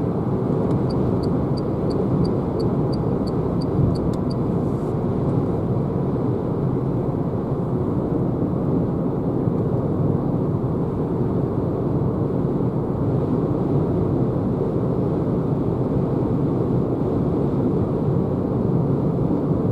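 Steady road and tyre noise inside the cabin of a Renault Zoe electric car cruising at about 90 km/h, with no engine sound. A run of light ticks, about two and a half a second, is heard in the first few seconds.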